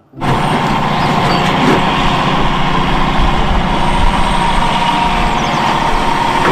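Caterpillar 352F hydraulic excavator with a sorting grapple, its diesel engine running steadily with a constant whine above the rumble.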